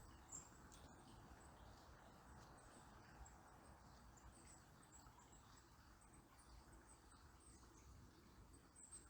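Faint, steady babble of a river, with brief, high-pitched bird chirps scattered throughout.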